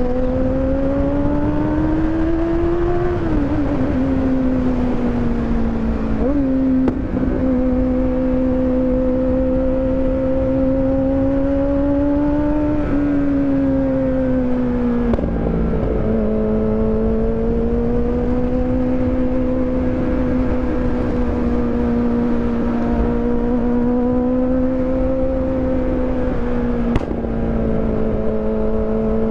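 Kawasaki motorcycle engine running at high revs under load, its tone held high and rising and falling slowly, with a few sharp dips in pitch: about three seconds in, around six and a half seconds, and at about thirteen and sixteen seconds. A steady rush of noise sits underneath.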